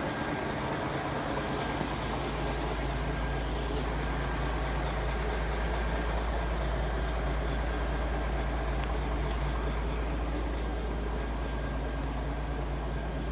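Mercedes-Benz 1634 truck's six-cylinder 457 diesel engine idling steadily through a straight-pipe exhaust with no muffler.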